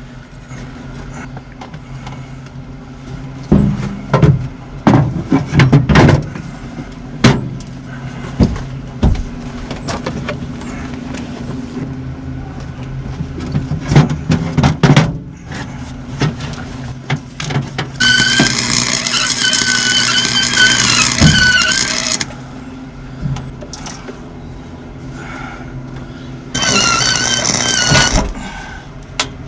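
Cheap wire-feed welder laying two bursts of arc, one about four seconds long and a shorter one near the end, a crackling hiss with a wavering whine, over a steady low electrical hum. Before the welding, a string of sharp clicks and knocks.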